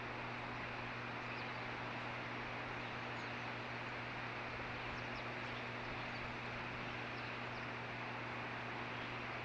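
Steady noise of a long freight train passing, over a constant low hum, with a few faint, short high chirps from a juvenile osprey.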